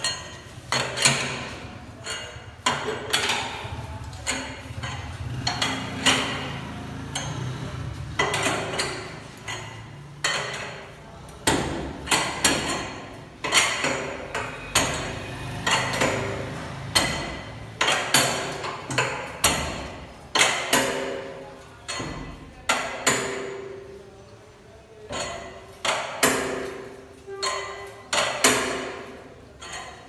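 Hammer blows on a steel tire iron, used to work a truck tire off its rim. The strikes come over and over at an irregular pace, about one a second, each with a short metallic ring.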